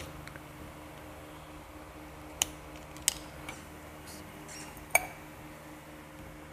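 Metal engine parts and hand tools clinking on a workbench: a few sharp, separate clinks, the loudest about two and a half seconds in and about five seconds in with a brief metallic ring, over a steady faint hum.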